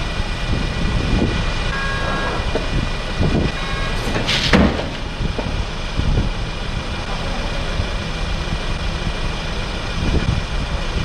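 A small flatbed truck's engine running steadily, with one short, loud bang about four and a half seconds in.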